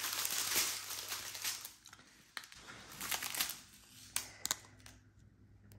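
Strip of small plastic bags of diamond painting drills crinkling as it is handled and unfolded: dense rustling that thins to a few separate crackles after about two seconds.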